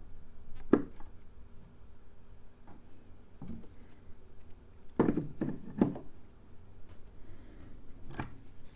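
Scattered light knocks and taps of a soldering iron and small tools being handled and set down on a wooden workbench: one about a second in, a cluster of three around five to six seconds in, and another near the end, over a faint steady hum.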